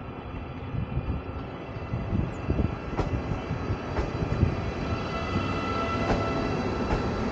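CRRC 'Bison' multi-system electric locomotive rolling slowly past at close range: a steady low rumble from its wheels on the track, with a few short clicks from about three seconds in. A thin steady whine joins in about five seconds in and fades again about a second and a half later.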